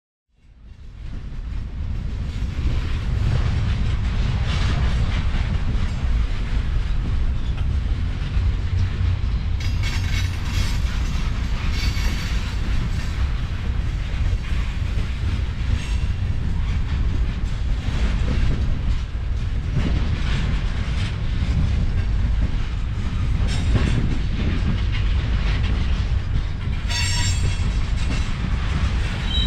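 A freight train of refrigerated railcars rolling past with a steady low rumble and the clatter of wheels on the rails, fading in at the start. A brief high-pitched wheel squeal comes near the end.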